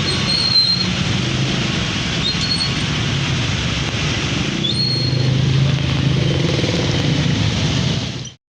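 Road traffic: a steady hiss with a low engine hum that grows louder about five seconds in as a vehicle comes closer, with a few short high chirps. The sound cuts off abruptly near the end.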